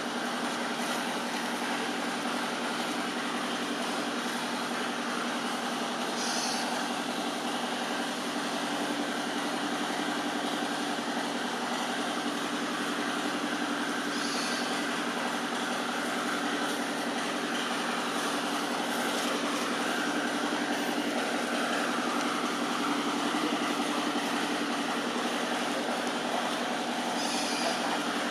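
A steady mechanical hum like an engine running, unchanging throughout, with three short high-pitched sounds spread through it.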